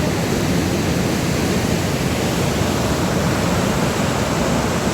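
Waterfall: a steady, loud rush of falling water, heaviest in the low end.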